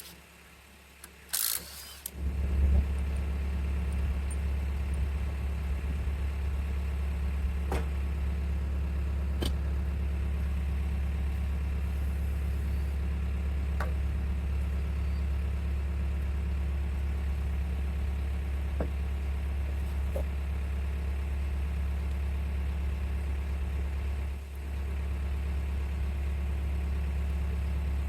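Cub Cadet 1772 garden tractor's engine started about two seconds in, then running steadily at idle, with a brief dip near the end.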